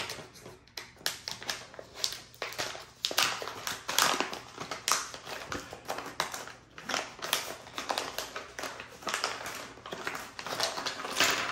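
Crinkling and rustling of a diamond-painting tool kit pouch being torn open by hand and its plastic-wrapped tools pulled out, a dense run of short, irregular crackles.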